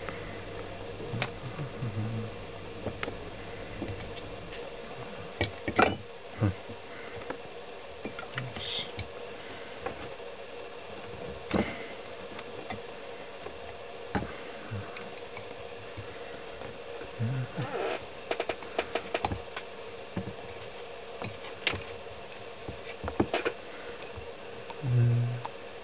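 Audio-frequency water heater's multilayer coil humming with a steady tone, with scattered clicks and knocks throughout.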